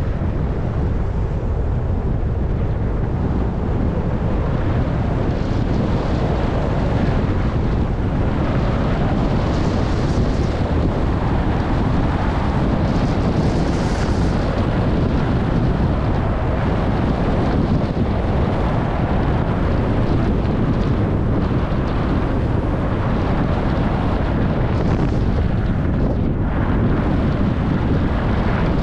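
Wind noise buffeting a helmet or action camera's microphone during a fast descent on a groomed ski run. A few brighter hissing swishes, about ten, fourteen and twenty-five seconds in, come from edges carving the snow.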